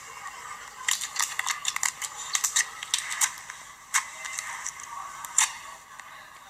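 Slime being squeezed and worked by hand, giving a run of sharp clicking and popping sounds, packed close together for a couple of seconds and then a few single louder pops.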